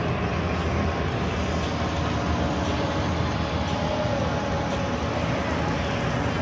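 Many paramotor engines flying overhead together, a steady mechanical drone with a faint tone that falls slowly about four to five seconds in as one passes.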